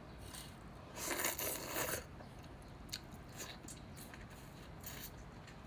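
Close-up eating sounds of a seafood boil. About a second in there is a loud second-long crunching burst as food is bitten, followed by a few small clicks and smacks of chewing.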